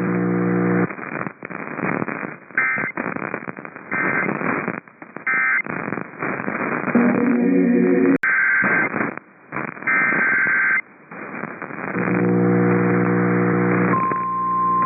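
NOAA Weather Radio reception between messages: crackling, buzzing static broken by several short bursts of digital SAME data tones. About a second before the end, the weather radio's steady single-pitch warning alarm tone begins, the signal that a new warning follows.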